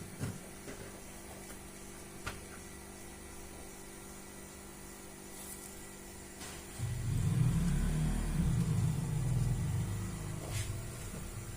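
A motorcycle engine starts about seven seconds in and runs with a low, unsteady rumble, loudest just after it catches, then settling lower. Light clicks are heard before it.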